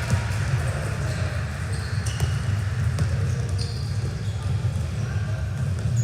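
Gym sounds during an indoor volleyball match: a few sharp ball hits and thumps, and brief high sneaker squeaks on the court floor. Under them run a steady low rumble of the hall and faint voices.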